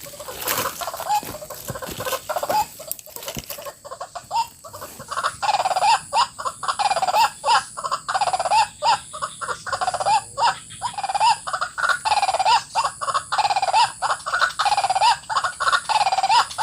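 White-breasted waterhen (ruak) calling, a regular run of rising-and-falling calls about once a second, starting about five seconds in after some rustling and clicks.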